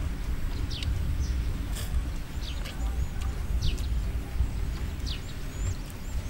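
Birds calling outdoors with short falling whistled notes about once a second, plus a few higher rising notes near the end, over a steady low rumble. A few sharp clicks.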